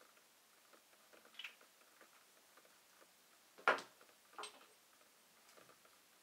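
Small clicks and light taps of skincare bottles and caps being handled, with a sharper knock about three and a half seconds in and a smaller click just after.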